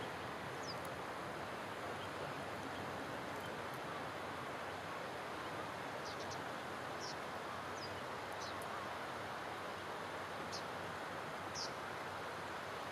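Open-air ambience: a steady hiss of wind and distant background noise. Short, high bird chirps sound about nine times at uneven intervals.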